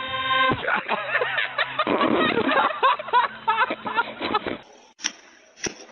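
Radio-controlled model airplane's motor running with a steady drone, stopping abruptly about half a second in. Excited laughter and exclaiming follow for about four seconds, then two sharp knocks near the end.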